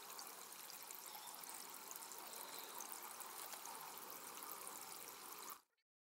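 Shallow stream trickling over stones, a faint steady water sound that cuts off suddenly near the end.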